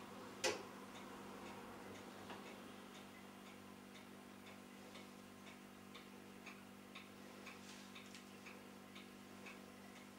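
Faint regular ticking, about two ticks a second, over a steady low hum, with one louder click about half a second in.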